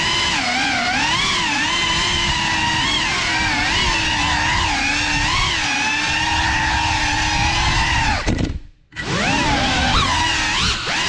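GEPRC Cinelog35 cinewhoop's brushless motors on 6S whining, the pitch wavering up and down with throttle. About eight seconds in the throttle is cut and the sound drops away for under a second, then spools back up with a rising whine.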